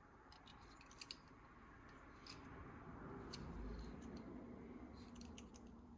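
Faint light clicks and handling noise of small carburetor parts being turned over and handled, with several scattered clicks and a soft rustle that swells in the middle.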